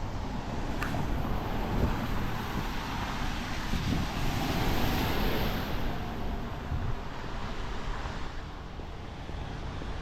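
Wind rumbling on the microphone over a steady outdoor wash of noise, which swells and fades again around the middle, with a short click about a second in.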